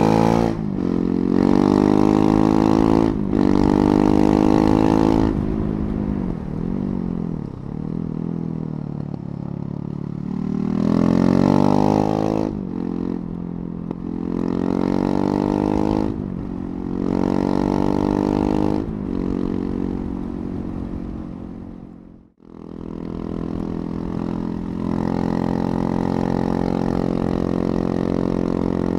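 KTM 690 Duke's single-cylinder engine on the move, pulling hard through the gears in several surges of rising pitch with the throttle eased off in between. After a brief dropout it settles into a steady cruise.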